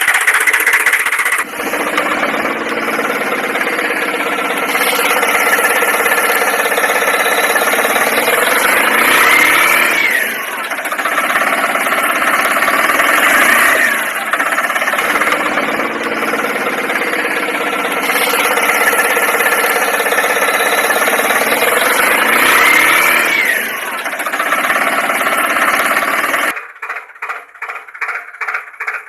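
An engine running steadily, with a pattern that repeats every few seconds and short rising sweeps in pitch. Near the end it gives way to a fast rhythmic pulsing, about three beats a second.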